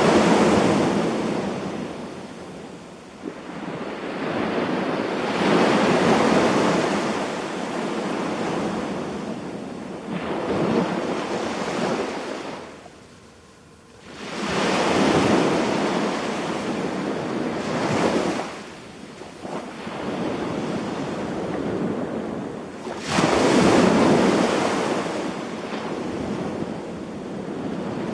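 Sea waves breaking and washing up the beach in repeated surges a few seconds apart, each swelling and fading away. There is a brief lull about halfway through.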